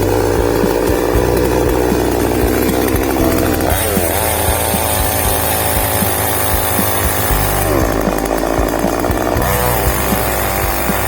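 Ibell chainsaw running near full throttle while cutting teak, its engine pitch shifting with the load. It runs lower for the first few seconds, rises about a third of the way in, sags again about two thirds in, then climbs back.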